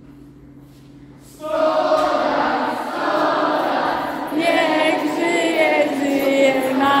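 A group of people singing a birthday song together, starting suddenly about a second and a half in after a faint steady hum.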